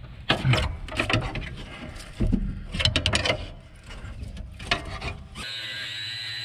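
A run of irregular metal knocks and clanks at the seized, rusted RV step mechanism. About five seconds in, a high-speed cutoff wheel starts cutting the metal with a steady, slightly wavering high whine.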